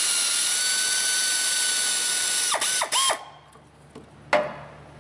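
Air ratchet spinning a nut: a steady high whine with hissing exhaust air for about two and a half seconds, then two short blips as the trigger is let off, the pitch dropping each time. A single sharp metallic knock about four seconds in.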